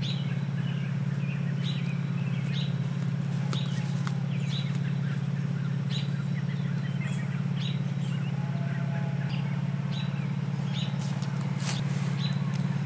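A bird calling in short, falling chirps about once a second over a steady low hum, with a few sharp knocks near the end.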